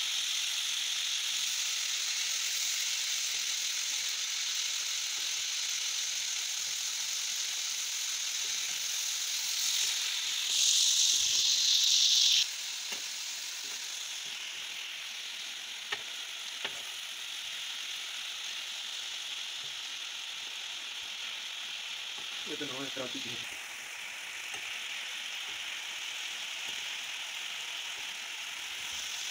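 Goat liver pieces sizzling in ghee and green masala water on a tawa, a steady high hiss of frying. About ten seconds in, the sizzle grows louder for a couple of seconds. Two light clicks come a few seconds later.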